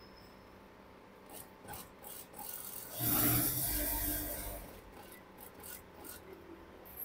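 Industrial sewing machine stitching in one short run of about a second and a half, starting about three seconds in. Paper and fabric rustle and slide on the machine table around it.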